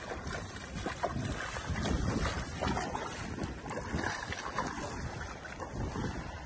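Footsteps splashing and sloshing through shin-deep floodwater as people wade along, with wind noise on the microphone.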